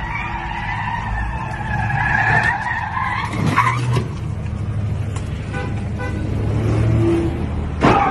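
Car tyres screeching under hard wheelspin as a sedan spins donuts, with the engine running hard underneath; the wavering squeal is loudest in the first few seconds. A sudden sharp noise comes near the end.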